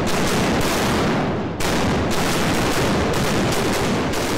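Sailing warship's cannons firing a rolling broadside: a loud, rapid string of heavy shots, one after another, each running into the next.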